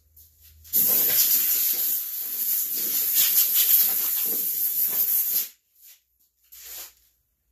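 Compressed-air blow gun hissing for about five seconds, blowing sanding dust off a mower deck, starting about a second in, wavering as the nozzle is moved, and cutting off sharply.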